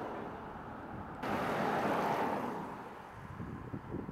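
Passing car on the road: a steady rush of tyre and engine noise that drops away, comes back abruptly about a second in, then fades out over the last second or so.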